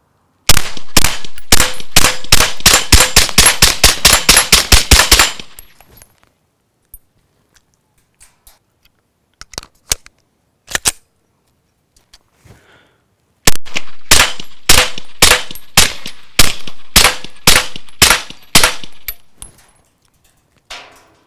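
Suppressed 9mm Glock 17C pistol, fitted with a SilencerCo Omega 9K suppressor, fired rapidly in two long strings of several shots a second. The first string starts about half a second in, and the second about halfway through, with a few scattered single clicks between them.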